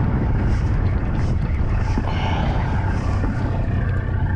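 Fishing boat's engine running steadily with a low hum, with wind on the microphone.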